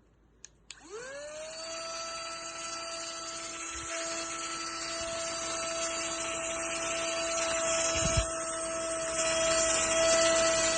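Cordless handheld vacuum cleaner switched on with a click, its motor spinning up over about a second into a steady high whine with a rush of air. It grows gradually louder, with a short bump about eight seconds in.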